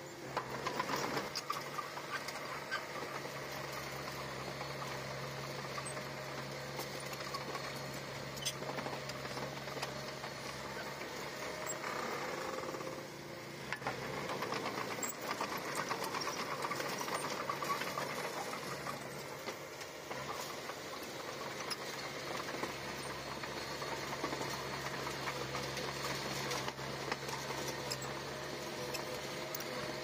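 Small Komatsu crawler bulldozer's diesel engine running steadily under work, with a fine, even rattle over a low drone that dips briefly about thirteen seconds in.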